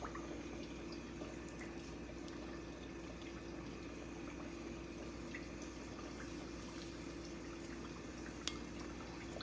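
Chicken frying in hot oil: a steady sizzle with a faint steady hum underneath and a sharper click near the end.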